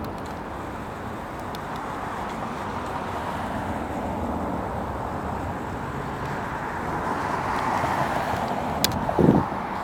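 Steady engine noise from outdoor traffic or aircraft, slowly growing louder toward the end, with a sharp click and then a brief low thump near the end.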